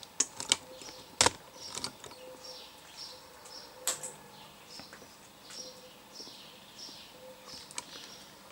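A few sharp clicks, the loudest about a second in and another near four seconds, over a quiet background in which a bird chirps faintly, a short falling chirp about once a second.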